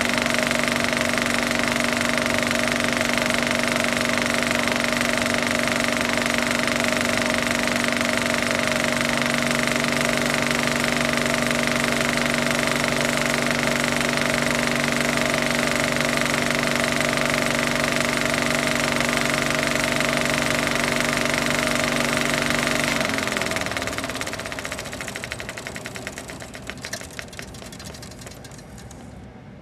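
Film projector running with a steady mechanical whir and rapid clatter. About 23 seconds in it winds down: the pitch falls and the clatter slows to separate clicks as it fades away.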